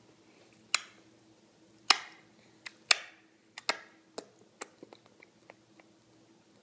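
A string of sharp, irregular clicks and taps, the loudest in the first three seconds, then smaller and sparser, over a faint steady hum.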